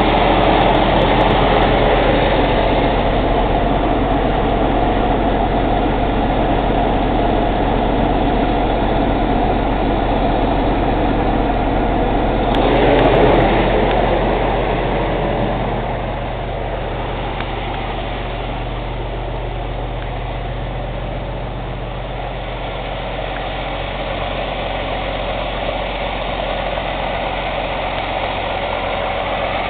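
Cummins ISX diesel engine idling during a regeneration, with a steady rushing noise over the engine hum. The rush swells about 13 seconds in and eases off by about 16 seconds. The owner suspects the noise is turbo chuff from the intake during regeneration.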